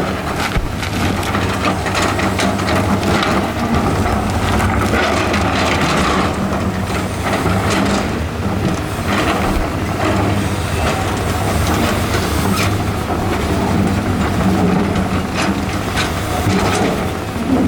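Hydraulic excavator's diesel engine running steadily while rock is moved, with irregular cracks, crunches and scrapes of stone against stone and steel.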